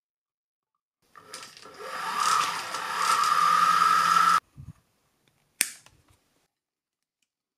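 Saw carriage rolling along metal ball-bearing drawer slides for about three seconds, a whirring rattle that grows louder and then stops. A dull knock follows, then a single sharp click.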